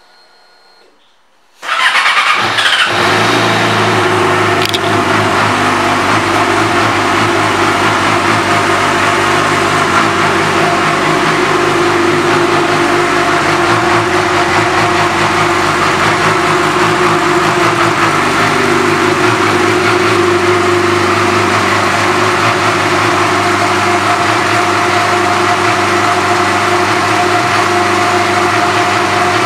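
2009 Yamaha YZF-R6's inline four-cylinder engine, breathing through an aftermarket exhaust, starts up about two seconds in and settles into a steady idle.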